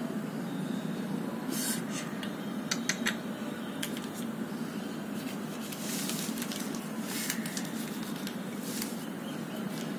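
A few light clicks and short rustles as a decorated thali plate is handled on newspaper, over a steady low hum.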